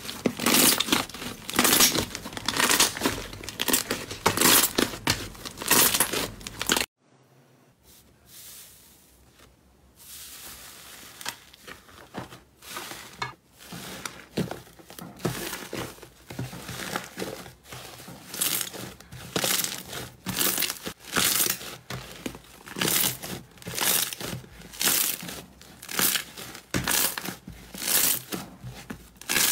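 Hands stretching, tearing and kneading thick fluffy slime: quick bursts of crackly tearing and popping, about two a second. The bursts stop for about three seconds around seven seconds in, then return more softly as another slime is pressed and squeezed.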